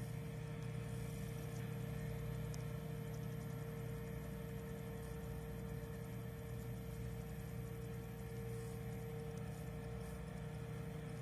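Railway track-repair machinery running steadily: a constant low hum with one held tone above it, unchanging throughout.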